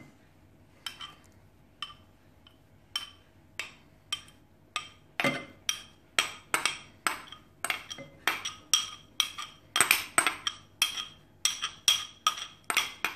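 A metal spoon clinking against a bowl again and again as tomato juice is scraped out of it into a glass bowl of chicken. Light knocks about once a second at first, then two or three a second from about five seconds in.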